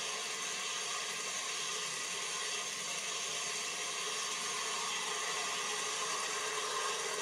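Large-scale garden-railway freight cars rolling past on the track, a steady mechanical whir and rattle of wheels on rail.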